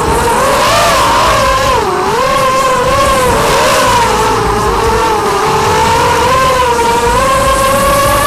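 Onboard sound of a racing quadcopter's 2206 1950KV brushless motors spinning 6030 propellers: a loud buzzing whine whose pitch rises and falls with the throttle, dipping deeply about two seconds in.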